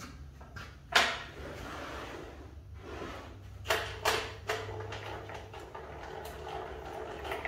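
Knocks and sliding scrapes of a stop block being positioned along a table-saw crosscut sled's fence. There is one loud knock about a second in, then three quick knocks in the middle, over a steady low hum.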